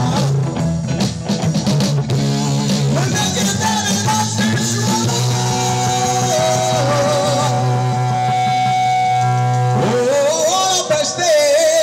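Live band playing amplified music with drums, guitar and a held low chord, a man singing over it in the second half.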